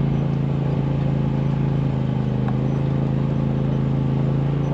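Side-by-side UTV engine running steadily at an even, unchanging pitch.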